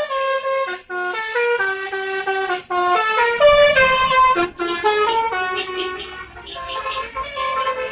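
Bus 'telolet basuri' musical horn playing a melody: a quick run of notes stepping up and down, with a couple of short breaks.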